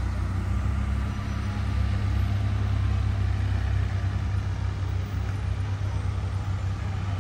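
Engines of slow-moving street traffic running and idling: a steady low rumble.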